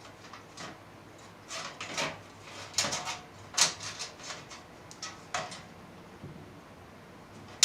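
Scattered clicks, taps and rustles of a motherboard and cables being handled and fitted into a computer case, with one sharp knock near the end.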